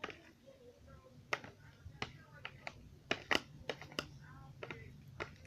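Slime being stirred in a container, with irregular sharp clicks and snaps, the loudest about three to four seconds in. The slime has clumped and is being mixed until it comes away clean from the container's sides.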